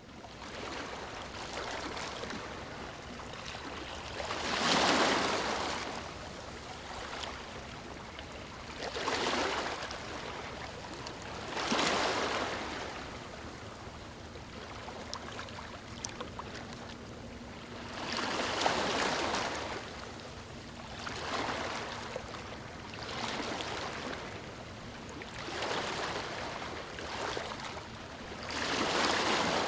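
Sea waves washing in and out, a steady hiss that swells every few seconds as each wave breaks.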